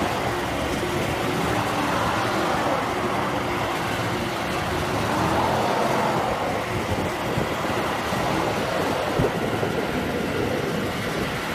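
Truck engines running under load while a pickup tows a stuck semi tractor-trailer over an icy road. There is a steady rush of noise, and a pitch near the middle swells and fades a few times.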